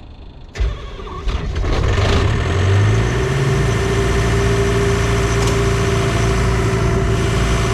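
Diesel engine of a Doosan 7/71 rotary screw compressor starting about half a second in, picking up over the next second or so, then running steadily.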